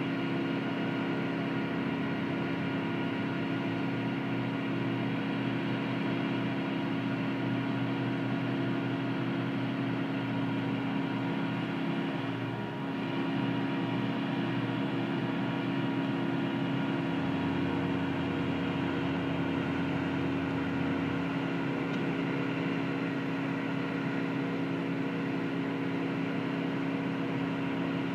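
Heavy machinery engine running at a steady speed: a continuous drone holding several fixed tones, with a brief slight dip about halfway through.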